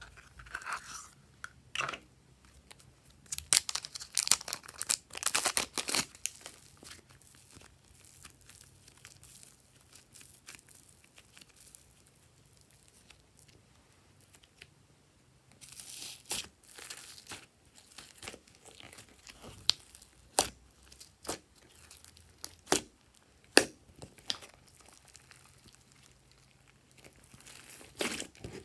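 Glossy slime being squished, stretched and pressed by hand, giving sticky crackles and little pops in irregular bursts with quieter pauses between.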